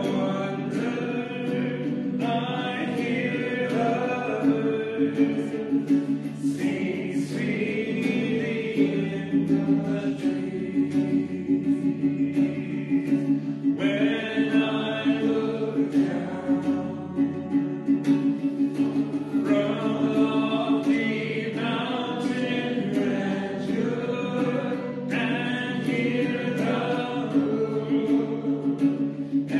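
Voices singing a hymn together in phrases of several seconds, over an accompaniment holding long steady low notes.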